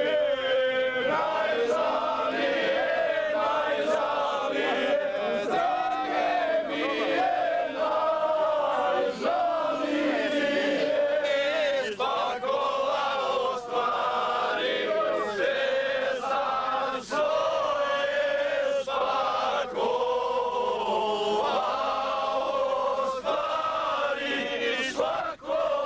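A group of men singing together in chorus, with long held notes.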